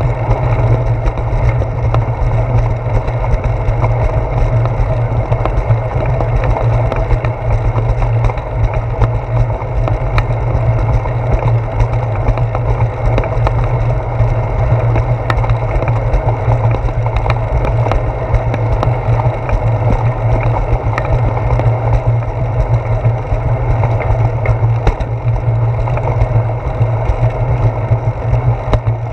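Steady low rumble and rattle of a bicycle rolling over a concrete sidewalk, carried through a handlebar-mounted GoPro Hero 4 in its housing, with many small clicks and knocks from the ride.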